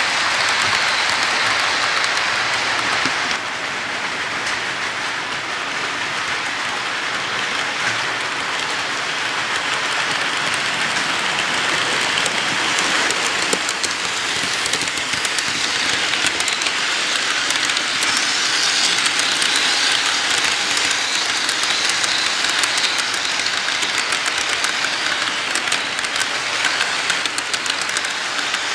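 Model freight train rolling along the layout track: a steady rattling hiss of small metal wheels running over the rails and joints as locomotives and cars pass. The sound changes slightly about three seconds in.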